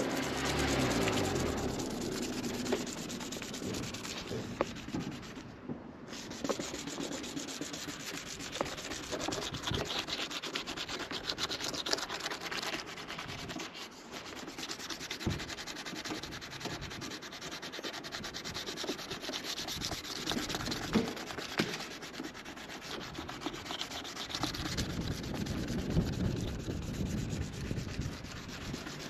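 Wet sanding of a plastic headlight lens with a water-soaked number one abrasive pad, a continuous uneven rubbing scrape in horizontal strokes.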